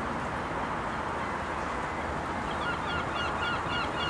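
Steady rushing background noise of the approaching train and the wet station, and from about two and a half seconds in a bird calling in a rapid string of short honking notes, about three a second.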